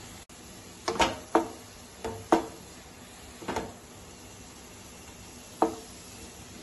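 Wooden spatula knocking and scraping against a metal frying pan while stirring chopped mustard greens. About six sharp knocks with a brief ring from the pan, in quick pairs over the first few seconds and one more near the end.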